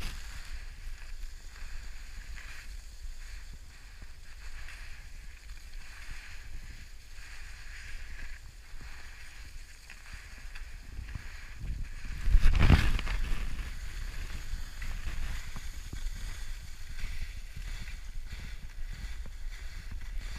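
Wind buffeting the microphone outdoors: a steady low rumble with hiss, and one stronger gust about twelve seconds in.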